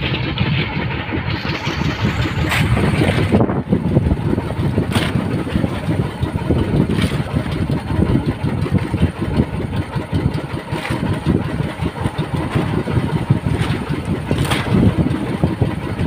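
Motorized outrigger boat's inboard engine running steadily with a fast, rumbling chug, with a few sharp knocks scattered through.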